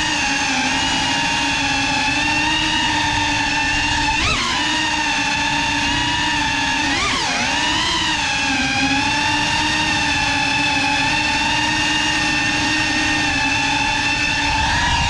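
GEPRC CineLog35 cinewhoop's brushless motors and ducted 3.5-inch propellers whining steadily in flight. The pitch jumps and dips briefly with throttle blips about four and seven seconds in.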